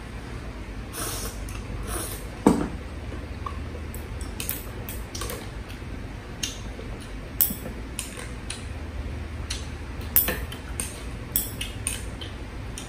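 Chopsticks tapping and clinking against a ceramic bowl and a hotpot during eating: a string of irregular light clicks, with one sharper knock about two and a half seconds in, over a low steady hum.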